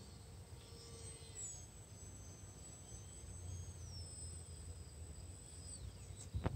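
Faint high whine of a micro control-line Nobler's 1104 brushless motor and propeller in flight, stepping down in pitch twice as the throttle is eased back, then falling away and stopping as the plane comes down to land. A couple of sharp knocks come right at the end.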